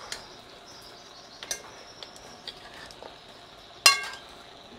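Metal spoon turning pork pieces browning in a metal pot, clinking now and then against the pot over a faint sizzle, with one loud ringing clink about four seconds in.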